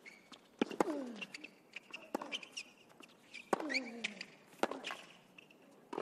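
Tennis rally on a hard court: sharp racket-on-ball strikes and ball bounces, with a player's grunt falling in pitch on a shot about a second in and again at about three and a half seconds.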